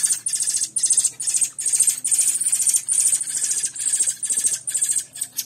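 Thrush nestlings (sabiás) begging for food: a continuous run of high, rapid, buzzy calls repeating about two times a second.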